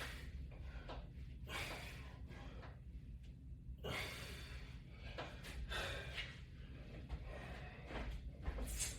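A man breathing hard while exercising with a resistance band: a sharp breath about every two seconds, in time with his repetitions.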